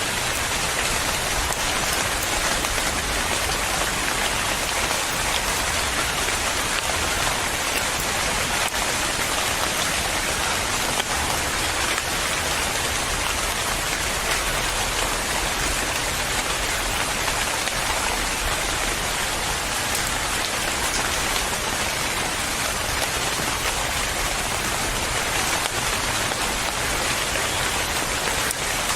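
Steady rain falling, a dense even patter of raindrops on a surface.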